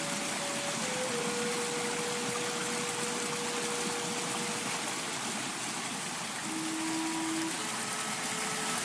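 Steady rush of falling water from a waterfall or cascading stream, with a few soft, long held tones over it that change pitch every few seconds.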